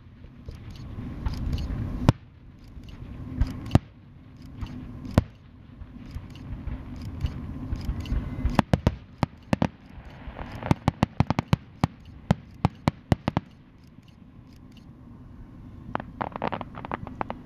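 Aerial fireworks shells bursting at a distance: single sharp bangs about two, four and five seconds in, then a fast run of many reports from about eight to thirteen seconds, and a cluster of crackles near the end.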